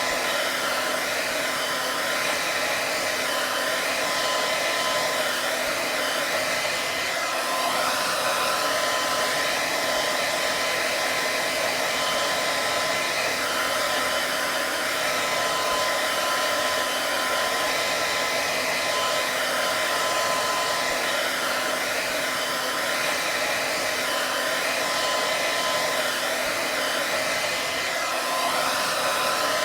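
Electric hair dryer running steadily: a constant rush of blown air with a thin steady whine from the motor.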